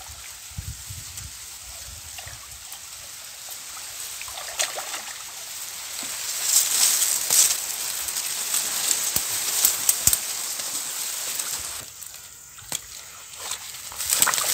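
Water sloshing and splashing as people wade through a muddy stream, louder in the middle and dropping away sharply about twelve seconds in.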